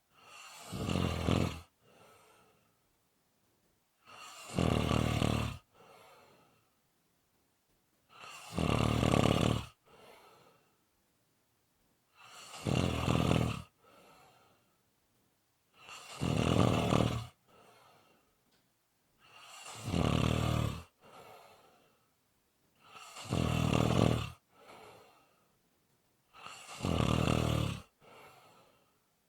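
A sleeping person snoring steadily: eight loud, rasping snores on the breath in, about one every three and a half to four seconds, each followed by a shorter, softer breath out.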